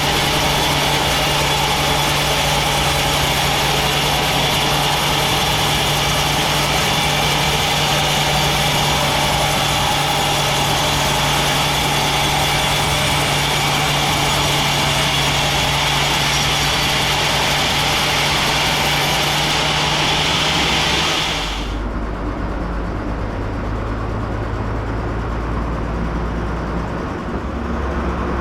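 Sawmill band saw running and cutting through a teak log: a steady, loud saw noise over a low machine hum. About 21 seconds in the bright cutting hiss stops, leaving the lower drone of the mill's motor running on.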